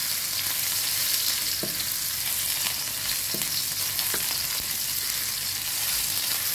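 Sliced garlic sizzling steadily in hot cooking oil in a wok, stirred with a wooden spatula that knocks lightly against the pan a few times.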